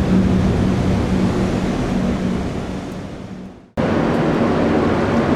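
Jet airliner engine noise: a steady rumble with a low hum. It fades away and cuts off about three and a half seconds in, then comes straight back at full level.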